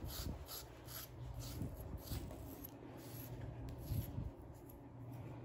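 Carding knife held almost flat, scraping through a puppy's thick back coat in short strokes, about two a second, faint and scratchy; it is pulling out the loose fluff of the undercoat. The strokes thin out after about three seconds.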